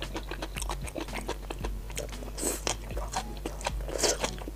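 Biting and chewing deep-fried scallion hearts off a skewer, picked up close: a quick run of small crunches and mouth clicks.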